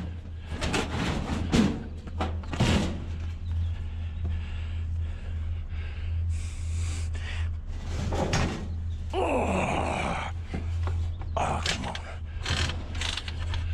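Knocks and clunks of heavy scrap metal being handled, with a long scraping slide about two-thirds of the way through as it is pushed into a van, over a steady low hum.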